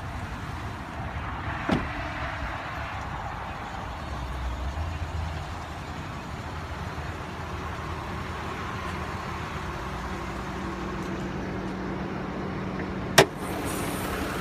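2016 Lexus RX350's 3.5-litre V6 idling steadily. A click about two seconds in as the hood release is pulled, and a sharp metallic clack near the end as the hood latch lets go and the hood is raised.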